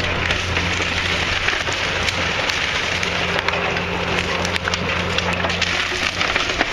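Old timber house being torn down: wood cracking and splintering with debris crashing in a dense run of sharp cracks, over the steady low drone of a heavy machine's engine.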